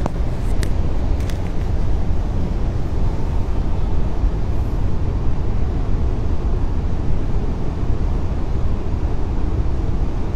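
Steady low rumbling noise, with a few faint clicks in the first second and a half.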